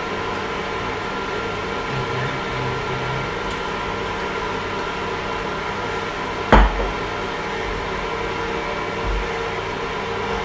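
Induction cooktop running under a frying pan of heating olive oil: a steady, many-toned electrical hum and fan noise. A single sharp knock comes about six and a half seconds in.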